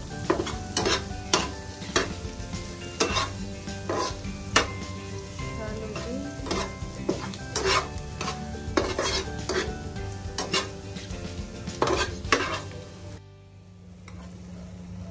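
Steel slotted spatula scraping and tapping against a nonstick frying pan, with irregular strokes, while it stirs sliced boiled eggs, onions and spices frying in sizzling oil. The scraping and sizzling stop near the end.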